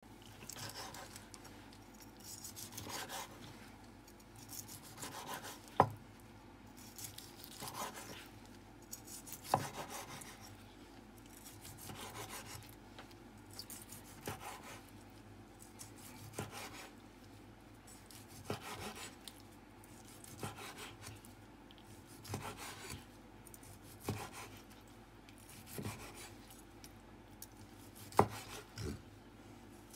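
A cleaver-style knife slicing seared roast beef on a wooden cutting board: a rasping draw through the crust about every two seconds, each stroke ending in a knock of the blade on the board, a few of the knocks sharp and loud.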